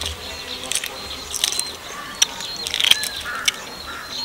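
Crackling and clicking of a steamed duck egg's shell as it is cracked and peeled away with the fingers, in short irregular bursts. Faint bird chirps in the background.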